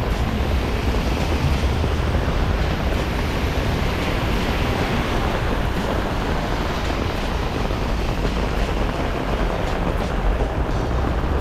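Heavy rain falling steadily on an umbrella held right over the microphone: a dense, even hiss with a low rumble underneath.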